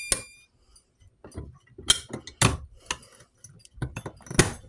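Fire alarm horn of a CHSR horn strobe sounding briefly and cutting off, followed by a series of sharp clicks and knocks from handling.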